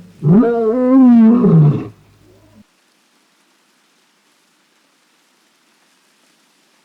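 A lion roaring once, a single call of about two seconds that rises and then falls in pitch, with a wavering tone.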